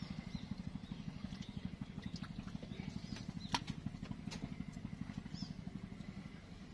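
A small engine running steadily with a fast, even low chugging, with scattered light clicks over it.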